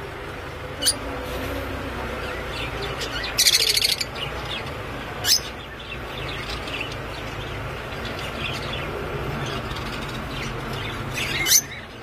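Rosy-faced lovebirds calling: sharp, shrill chirps here and there, with one loud, harsh, buzzing call lasting about half a second about three and a half seconds in. A steady low rumble runs underneath.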